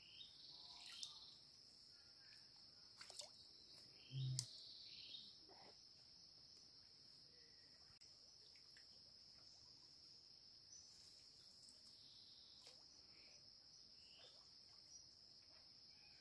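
Insects in the forest, a steady high-pitched drone, faint overall. A few faint clicks in the first five seconds and a short low thump about four seconds in, which is the loudest moment.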